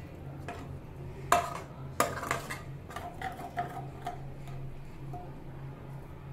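A stainless steel ladle stirring a watery masala in a pan, clicking and tapping against the pan's metal a few times, loudest about a second and then two seconds in. A steady low hum runs underneath.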